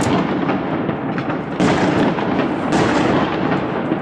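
Aerial fireworks shells bursting one after another: a dense, continuous rumble and crackle broken by sharp bangs near the start, about one and a half seconds in, and again around two and a half seconds.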